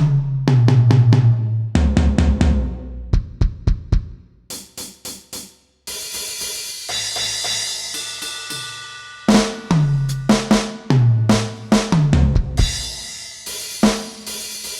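Turbo Electronic TDX-16 electronic drum kit played on its live-rock preset: quick tom fills with kick and snare hits. About six seconds in a cymbal crash rings for a few seconds, then the tom fills return.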